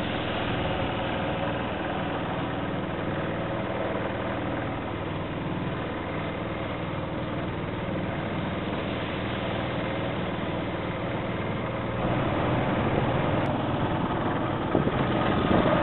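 Small fishing boat's engine running steadily while the boat is under way, a little louder from about twelve seconds in.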